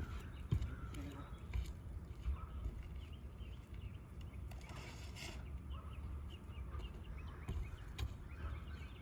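Roofing work on an asphalt-shingle roof while a new shingle is fitted: a few light taps and clicks and a short scrape, over a steady low rumble.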